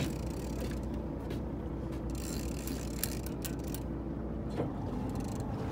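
Big-game lever-drag fishing reel being cranked hard under load against a hooked bluefin tuna: a mechanical grinding of gears with irregular clicks, over the steady low rumble of the boat's running engine.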